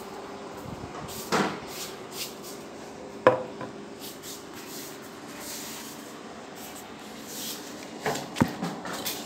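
Scattered knocks and bumps of objects being handled and set down, the sharpest about three seconds in and a cluster near the end, over a faint steady hum.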